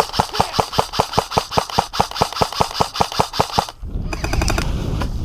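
Airsoft electric rifle firing a long rapid string of shots, about seven a second, that stops a little under four seconds in, followed by a low rumbling noise.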